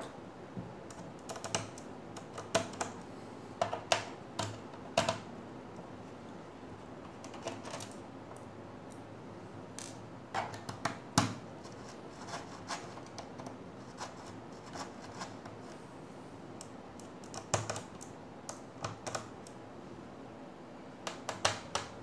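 Irregular small clicks and taps of a screwdriver backing screws out of a Dell Inspiron 3576 laptop's plastic bottom cover, coming in scattered clusters with quieter gaps between.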